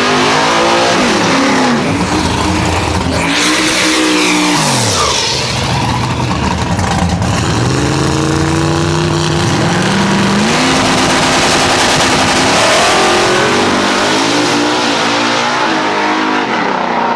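Drag-race car engines running hard at the strip, their pitch climbing and falling as they rev and accelerate, with a steep drop in pitch about four to five seconds in.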